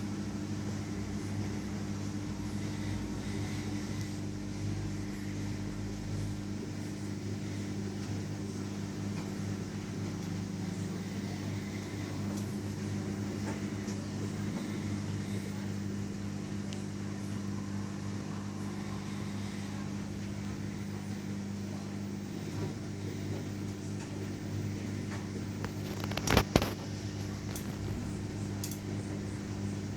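Front-loading washing machine running in its spin cycle at a steady speed, a constant motor and drum hum. Near the end a few sharp clicks or knocks stand out above it.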